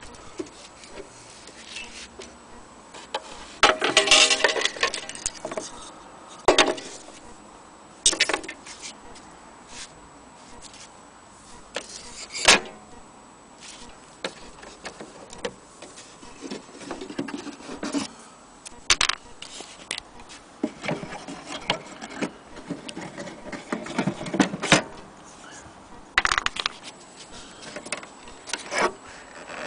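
Scattered knocks, taps and clicks from hands handling a wooden wall clock case and its glazed door, with a longer clatter about four seconds in.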